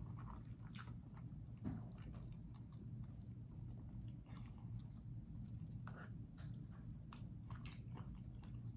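A person chewing soft food close to the microphone, with faint scattered wet mouth clicks and smacks over a low steady hum.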